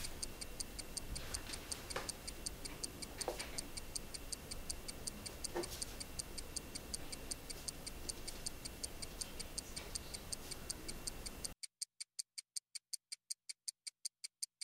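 A clock ticking in a quick, even rhythm over low room hiss. About three-quarters of the way through, the hiss cuts out and the ticks go on alone.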